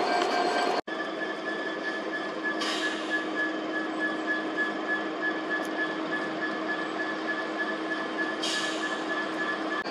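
Class 66 diesel locomotive's EMD 12-cylinder two-stroke engine idling with a steady hum and whine, broken by two short hisses, about two and a half and eight and a half seconds in. The sound cuts out for an instant just under a second in.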